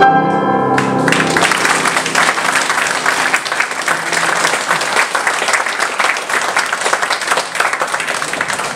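The song's last piano chord ringing out and fading in the first second, then an audience applauding steadily; the applause cuts off suddenly at the end.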